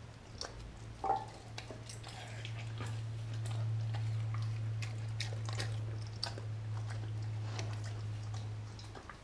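A German Shepherd–Chow Chow mix dog eating raw meat: wet chewing and biting with irregular sharp clicks of teeth, over a steady low hum.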